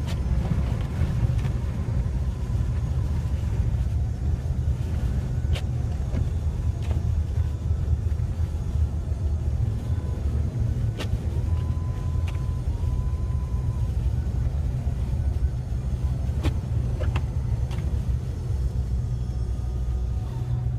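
Car driving on a snowy road, heard from inside the cabin: a steady low rumble of engine and tyres, with a few faint clicks.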